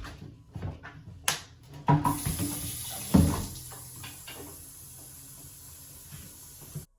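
A few knocks and clunks of the carpet cleaner's plastic water tank being handled in the sink, then a tap running steadily to fill the tank, cutting off suddenly near the end.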